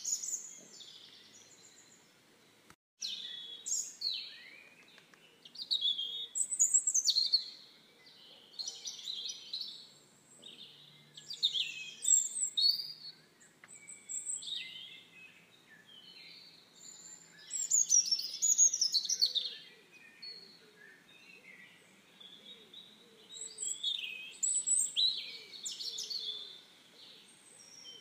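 Songbirds singing: bursts of varied high chirps and trills every second or two, with a brief cut-out about three seconds in.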